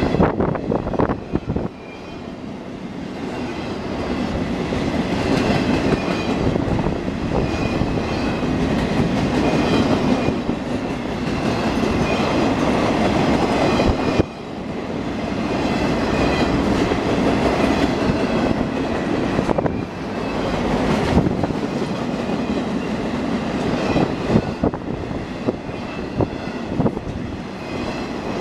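Freight train of flatcars carrying wind turbine blades rolling past close by: a steady rumble of wheels on rail with repeated clicking over the rail joints. A faint high squeal from the wheels comes and goes.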